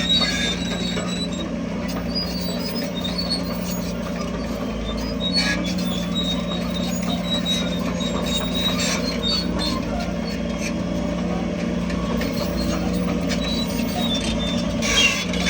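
Heavy construction machine's diesel engine running steadily, with faint high-pitched squeaks now and then.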